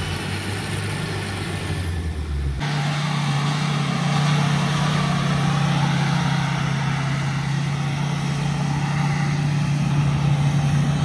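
An SUV engine running steadily. About two and a half seconds in, its note jumps higher and then holds at the new speed.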